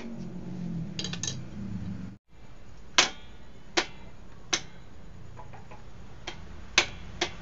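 Sharp metal clicks from hand tools at the center stand mount of a scooter engine, one about every three quarters of a second, the loudest about three seconds in. A low rumble with a few small clicks comes before them.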